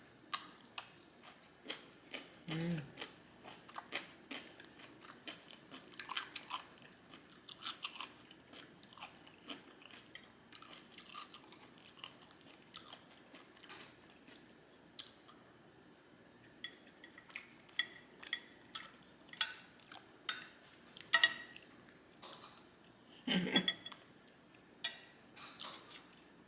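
Close-miked chewing of food with irregular wet mouth clicks and smacks and occasional crunches. Two brief voiced sounds from the eater come about three seconds in and near the end.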